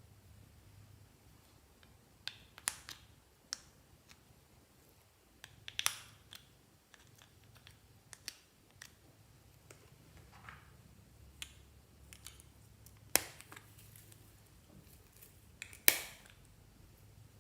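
Fluffy slime being pressed and stretched by hand, giving off sharp pops and clicks at irregular intervals, the loudest two near the end.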